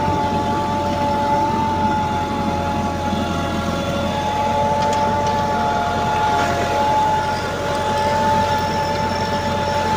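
385 tractor running steadily under load while it pulls a spring-tine cultivator through soil, with a constant whine from the engine and drivetrain over a low hum.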